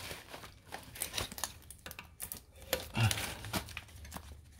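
Light, scattered clicks and rustles of a scooter's stator wire set and its plastic connector being handled, with a brief murmur of a voice about three seconds in.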